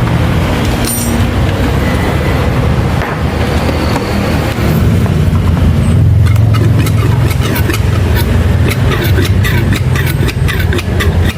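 An engine running steadily. From about halfway, a quick run of sharp clicks comes over it.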